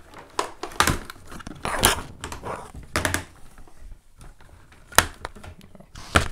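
Hard plastic skeleton prop clattering and knocking as it is handled and turned around on a tabletop: irregular clicks, clacks and short scrapes, with one sharp knock about five seconds in.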